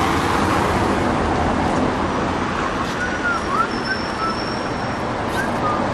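Steady city road-traffic noise, with a few short faint chirps in the middle.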